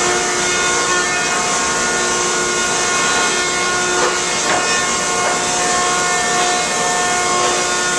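Newman M68 planer line running steadily in a mill, a constant machine hum with several steady whining tones over a high hiss, and a few faint knocks about halfway through.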